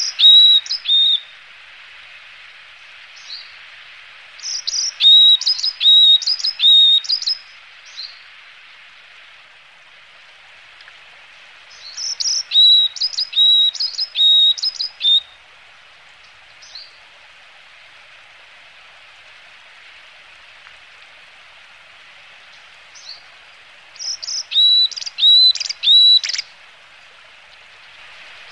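Varied tit calling in several bursts of quick repeated high chirps, each note dropping sharply in pitch, over a steady high background hiss.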